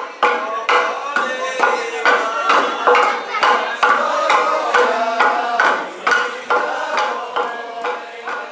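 Several wooden pestles (kine) pounding steamed rice in a wooden mortar (usu), one after another, giving quick, uneven knocks about two to three a second. Men's voices call out over the pounding.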